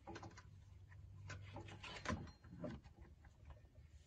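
Faint rustling and light knocks of a rubber serpentine belt being handled and fed around the engine's pulleys, with a sharper knock about two seconds in.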